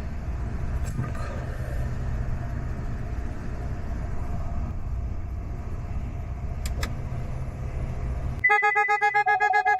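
Steady low rumble of a car, with a faint steady hum and two light clicks a little before the end. Near the end the rumble cuts off abruptly and fast-pulsing electronic tones begin.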